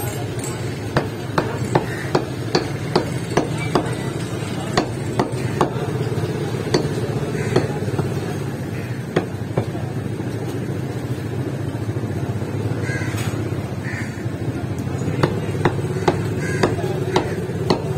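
Meat cleaver chopping beef on a wooden tree-stump block: sharp strokes about two and a half a second in a run near the start and again near the end, with scattered strokes in between. A steady low hum of background noise runs under the chopping.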